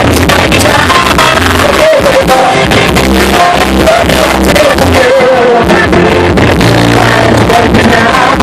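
Live rock band with singing, drums and guitar played through a PA, very loud and overloaded: the recording was made too close to the speakers, so the sound is harsh and distorted.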